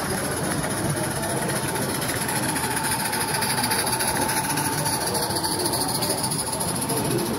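Garden-scale model trains running on the layout: a small live-steam locomotive hissing steadily as coaches and wagons rumble over the track. A faint steady tone sounds for a few seconds in the middle.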